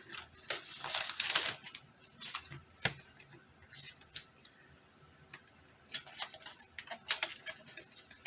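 A small parcel being opened and its contents handled: packaging rustling and crinkling in short spells, with scattered light clicks and taps.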